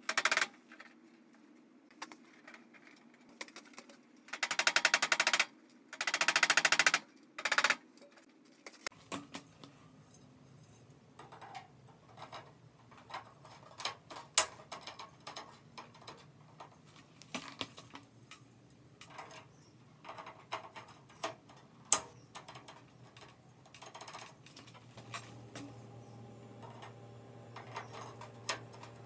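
Several short bursts of rapid clicking from a screw-driving tool fastening the fluorescent fixture, each about a second long. After that come scattered light clicks and taps of hands working the sheet-metal fixture housing over a faint low hum.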